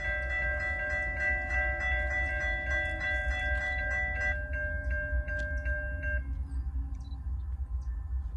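Railroad grade-crossing warning bells ringing with a rapid, regular dinging. One bell stops about four seconds in and the other about six seconds in, over a steady low rumble.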